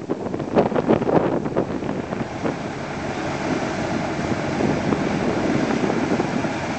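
Wind buffeting the microphone, gusty at first and then steadier, over a low machine rumble.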